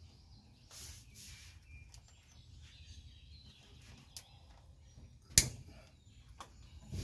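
A few sharp clicks and knocks of tools and parts being fitted, the loudest about five seconds in and another near the end, with a short scraping rustle about a second in. Birds chirp faintly in the background.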